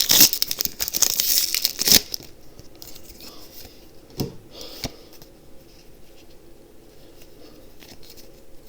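Foil booster pack wrapper being torn open and crinkled, loud and crackly for about two seconds. After that it drops to quiet handling rustles, with two brief louder rustles around four and five seconds in.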